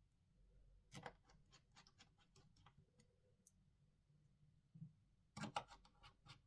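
Faint, quick clicks and ticks of a precision screwdriver driving small screws into a smartphone's frame, with a few louder clicks near the end.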